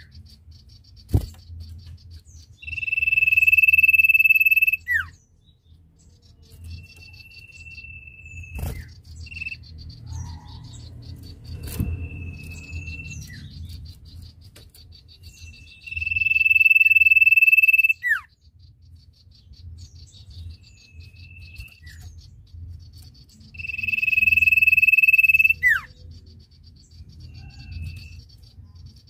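Common iora singing: three long, steady high whistles of about two seconds each, every one ending in a quick downward slur, with shorter whistles at the same pitch between them. A few sharp knocks sound in the first half.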